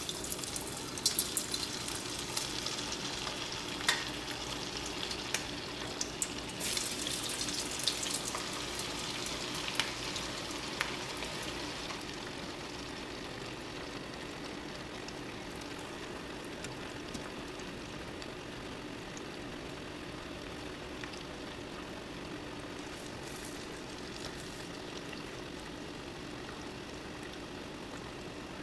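Cabbage vadas, fritters of ground lentil and rice batter, deep-frying in hot oil in a steel pan: a busy crackling and popping sizzle for the first dozen seconds after they go in, then settling into a steadier, quieter sizzle, with a faint low hum underneath.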